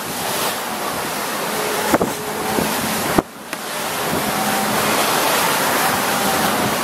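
Rushing water streaming past a fast-sailing catamaran's hull, mixed with wind on the microphone: a loud, steady hiss that briefly drops out just after three seconds.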